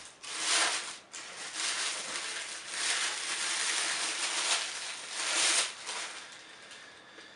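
Clear plastic bag crinkling and rustling as a camera body is pulled out of it, in several swells, dying away near the end.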